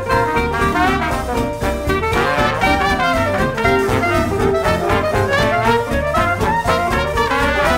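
Background music: upbeat jazz with brass instruments and a steady beat.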